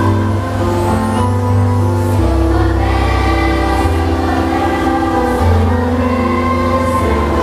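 Children's choir singing a Christmas song in held notes over an instrumental accompaniment whose low bass notes change every second or so.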